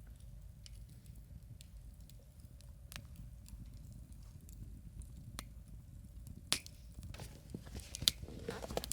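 Wood campfire crackling with scattered small pops over a low, steady rumble. A couple of sharper pops come in the second half, and the crackling grows busier near the end.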